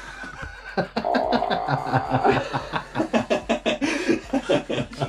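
People laughing, with quick repeated snickers and chuckles.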